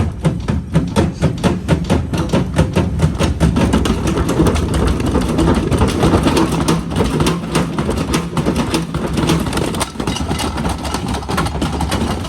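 Hotpoint FMG723 washing machine running hard with a steady motor hum and a loud rhythmic knocking, about four knocks a second at first, coming faster and running together as it goes on.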